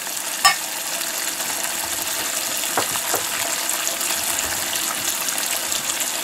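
Pike liver frying in hot oil in a pan: a steady sizzle with a few sharp pops, one about half a second in and two close together a little before the middle.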